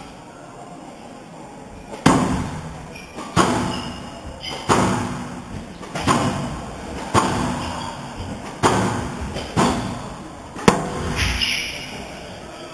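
Squash rally: the ball is struck by rackets and hits the court walls, about eight sharp cracks roughly a second or so apart, each ringing in the hall, starting about two seconds in and stopping shortly before the end.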